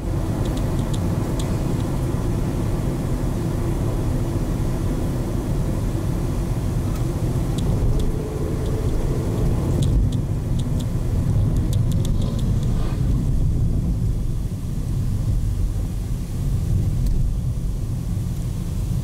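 Steady low road rumble of a car travelling at highway speed, heard from inside the cabin, with a few light clicks scattered through it.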